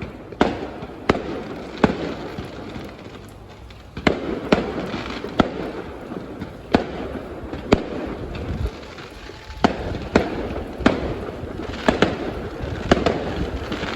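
Fireworks display: aerial shells bursting in sharp bangs at irregular intervals, about one a second, with crackling between them and a short lull a few seconds in.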